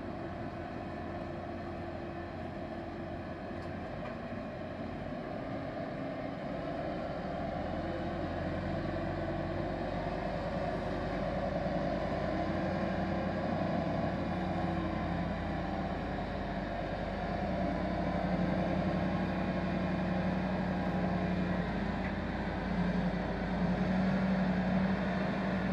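Heavy-haul truck engine running steadily under load, a low steady hum that grows gradually louder as the rig draws nearer.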